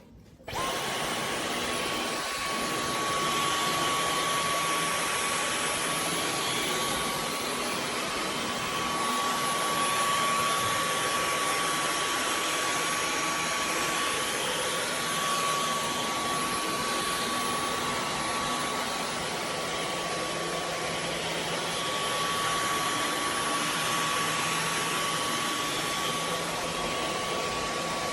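Dyson V15 Detect cordless stick vacuum switching on about half a second in. Its motor whine climbs briefly, then holds one steady high pitch over a steady rush of air as it keeps running.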